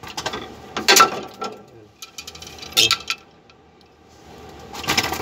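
A few sharp metallic clanks and knocks from work on a bus's rear drum brake, the loudest about a second in, with others near three seconds and near the end.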